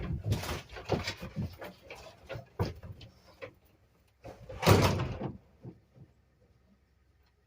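A run of knocks and clatter, then one louder thud with a scrape about four and a half seconds in, like a door being slid or shut.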